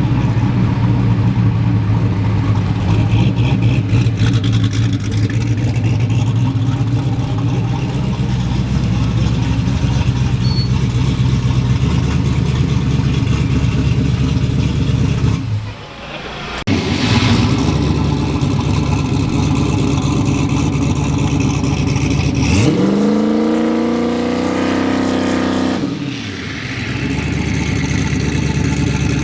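Drag race car engine running steadily, dipping briefly a little past halfway, then revving up in a rising sweep for about three seconds near the end before dropping back to a steady run.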